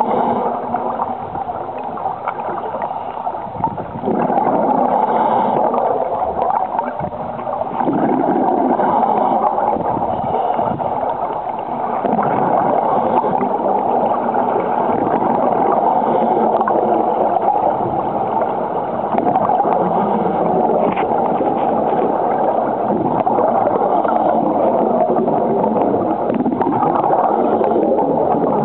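Scuba diver's regulator breathing: exhaled air bubbles gurgling and rushing past the underwater camera, a continuous dull rush that is a little quieter for a couple of seconds near the start.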